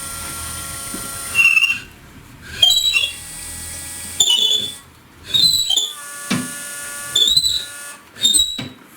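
Long reamer cutting the camshaft bearing bores of a VAZ-11183 cylinder head. It squeals and rings metallically in about seven strokes, roughly one a second. The reaming trues up bores in which the camshaft binds.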